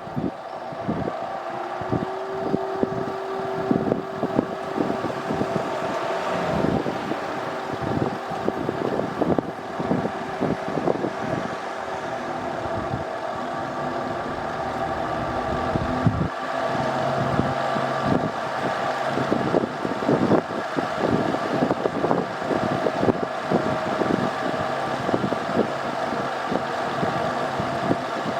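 Air-conditioner outdoor unit's fan motor running with a loud, rattling grinding noise, the abnormal noise of a motor whose bearings were flooded with muddy water. Its steady hum changes pitch about halfway through.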